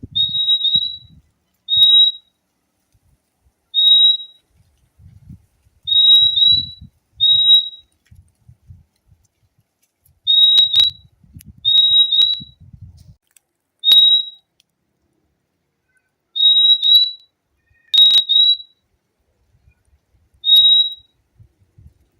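Fim-fim (purple-throated euphonia) calling: short, clear whistled notes, often doubled, repeated every one to two seconds.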